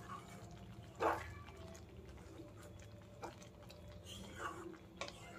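A wooden spatula stirs thick pea-and-potato curry in a nonstick pan, making faint wet squelches and scrapes. One louder squelch comes about a second in, with a few light knocks later, over a low steady hum.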